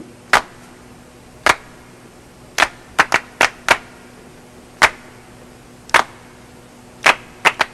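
A series of sharp, short snaps, about a dozen at uneven intervals, several coming in quick runs about a third of a second apart.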